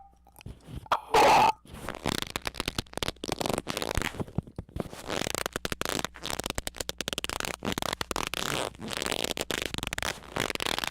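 Harsh, distorted squeaking noises: one brief, very loud squeak about a second in, then a rapid, irregular crackling sputter for the rest.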